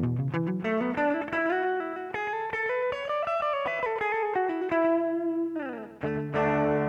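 Electric guitar played through a Boss GT-100 multi-effects processor. A run of picked notes climbs in pitch for about three seconds and falls back, then a new chord is struck near the end.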